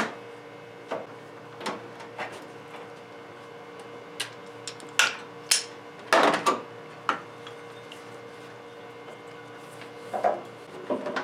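Scattered clicks, knocks and rattles of hand tools and the serpentine belt being worked off the engine's pulleys after the belt tensioner is released, over a steady low hum.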